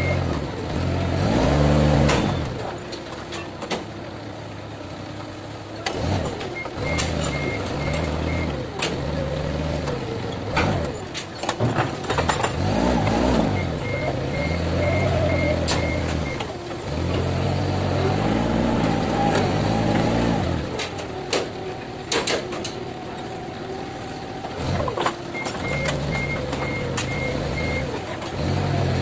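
Forklift engine running and repeatedly revving up and down as the hydraulic levers lift and work the paper roll clamp. Runs of rapid high-pitched warning beeps sound four times, and there are scattered sharp knocks.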